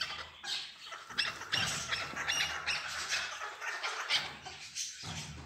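Chukar partridges calling in a run of short, sharp notes, several a second, fading near the end.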